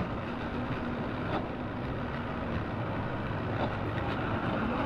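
Twin outboard motors running slowly, a steady low hum as the boat eases in toward the dock.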